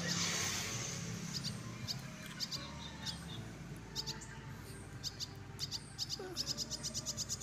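Small bird chirping outdoors: short high-pitched chirps in pairs and small groups, quickening into a rapid run of chirps near the end.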